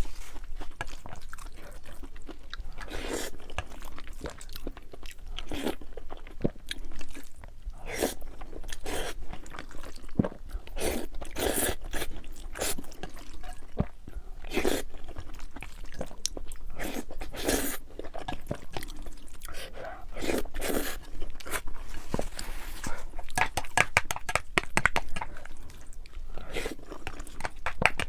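A person biting and chewing crunchy food close to the microphone, with irregular crunches throughout.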